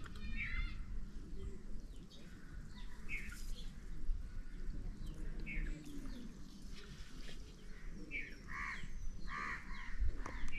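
Birds chirping in short, scattered calls, with a quick run of repeated notes near the end, over a low rumble.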